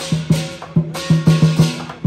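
Music with loud, rhythmic percussion: quick drum hits with crashing cymbals.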